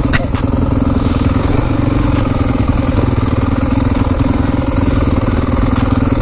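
Enduro dirt bike engine running at a steady, low engine speed, with no revving up or down.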